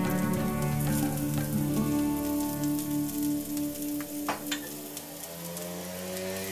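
Slices of steamed alu vadi (colocasia leaf rolls) sizzling and crackling as they shallow-fry in hot oil in a steel pan, under background music.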